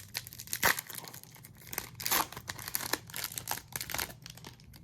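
Foil wrapper of a Topps Chrome trading-card pack being torn open and crinkled, a run of sharp crackles.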